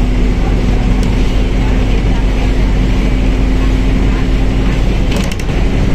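Mercedes-Benz OF1721L bus running on the road: a steady engine and drivetrain drone with a constant whine. A short cluster of clicks and a brief dip in level come about five seconds in.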